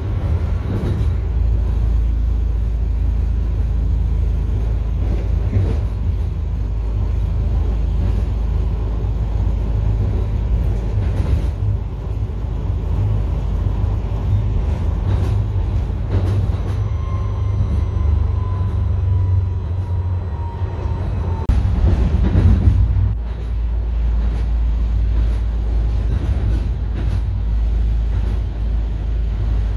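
Tram running, heard from inside the car: a steady low rumble of wheels on rails with scattered clicks. A faint whine falls in pitch a little past the middle, and there is a brief louder rumble shortly after.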